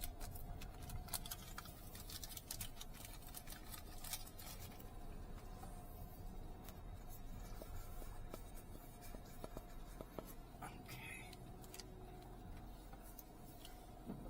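Car cabin with the engine running low and steady, and scattered small clicks and rustles, most of them in the first few seconds.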